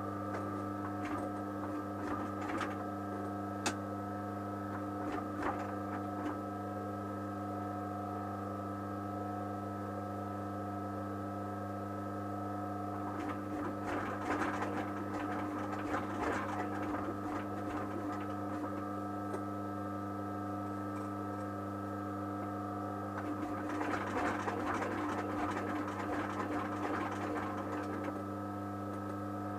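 A sewing machine stitching leather in runs of rapid stitching: a few short runs early on, then two longer runs in the middle and near the end. A steady electrical hum sounds throughout.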